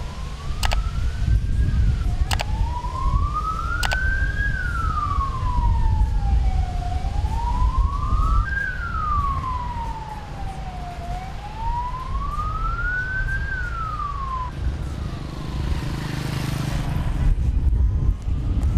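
Emergency vehicle siren wailing, slowly rising and falling about every four and a half seconds over a steady low rumble, then fading out about three-quarters of the way through. Three sharp clicks come in the first few seconds, and a rush of noise swells near the end.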